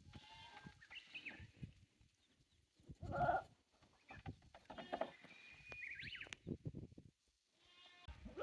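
Goats bleating, a short call about three seconds in and another around five seconds, with scattered light clicks and knocks between them.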